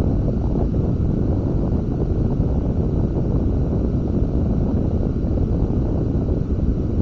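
Wind buffeting the microphone of a camera mounted on a sailing catamaran: a steady, loud, low rumble.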